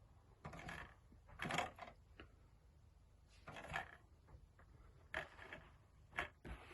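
Faint handling noises from a DVD in a metal tin case being moved and turned in the hands: about five short scrapes and clicks spread a second or so apart.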